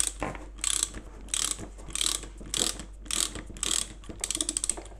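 Rasping, ratchet-like metal clicking in about eight strokes, one every half second or so, as an electric scooter's shock absorber is turned out of its threaded mount by hand, with a quick run of clicks near the end.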